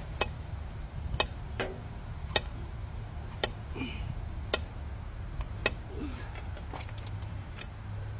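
Half-inch drive ratchet with a cheater bar on it clicking sharply about once a second while it is worked against a tight truck lug nut, with a couple of faint metal squeaks, over a steady low hum.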